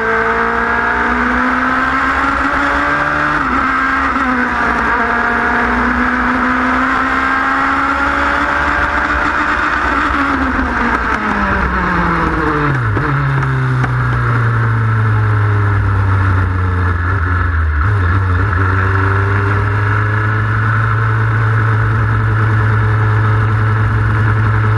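Open-wheel Formula 3 race car's engine heard onboard, pulling at high revs with a few quick gear changes. About ten seconds in the revs fall away steeply, and the engine settles to a steady low-rev note.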